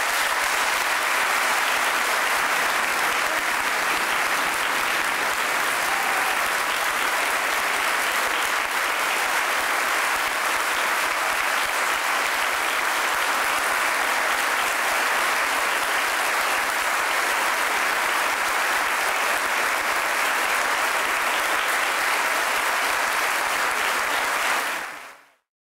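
Large audience applauding, a dense steady clapping that cuts off suddenly near the end.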